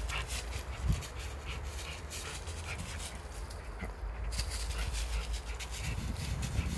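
An American Staffordshire terrier jumping at and tugging on a rope toy hung from a tree branch, its paws scuffing and rustling dry fallen leaves in many short scratchy bursts. There is a thump about a second in, over a steady low rumble.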